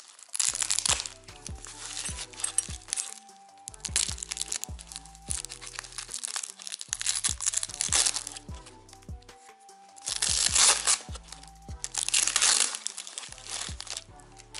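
Packing tape being peeled and torn off a foam wrapping, with crinkling of the foam, in several noisy rustling spells, the loudest two near the end. Background music with a steady bass line plays underneath.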